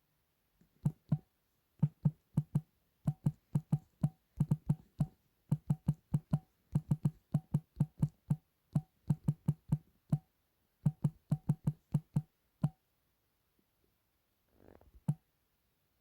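A quick, uneven series of sharp clicks or knocks, about three a second, each with a dull thud and a faint pitched ring; they stop about three-quarters of the way through, with one last click near the end.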